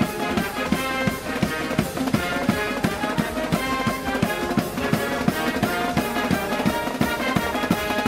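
Background music played by brass and drums, with a steady beat.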